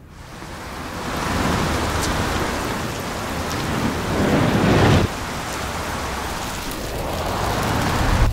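Swelling rushes of noise with a deep rumble beneath, like sound-design risers: one builds and cuts off suddenly about five seconds in, and another builds up near the end.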